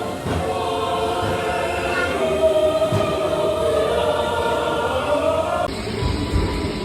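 Choir singing long, held chords, cut off suddenly about six seconds in by different music.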